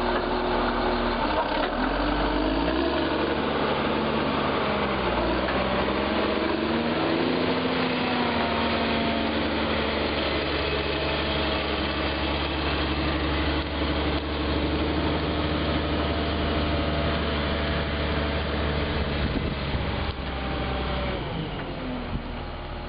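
Caterpillar 140G motor grader's six-cylinder diesel engine running as the machine drives past, its pitch rising and falling over the first several seconds, then holding steady. It grows somewhat quieter near the end as the grader moves off.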